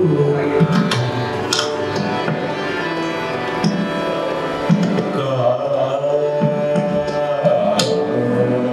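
Hindustani classical vocal in Raag Abhogi: a singer holds long, bending notes over a steady drone, with tabla strokes falling at irregular intervals. The voice is strongest in the second half.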